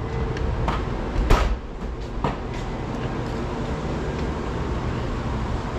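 Background of an industrial workplace with its machines not yet running: a steady low hum with a few scattered knocks and clicks, the loudest about a second and a half in.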